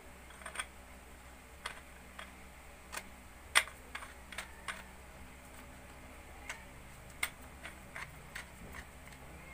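Irregular light clicks and taps of 12-gauge shotgun shells and the parts of a homemade shotgun being handled with gloved hands, with one sharper knock about three and a half seconds in.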